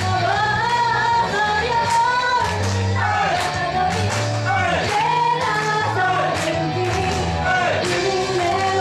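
Japanese idol pop song performed live: two female singers singing into microphones over a pop backing track with a steady bass line.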